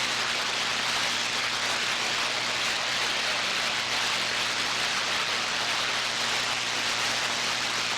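CB radio receiver hiss: steady static from the open channel between skip transmissions, with a faint steady low hum underneath.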